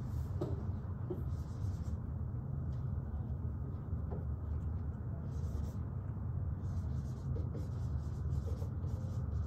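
Dry-erase marker writing on a whiteboard, in short scratchy strokes with pauses between them, over a steady low room hum.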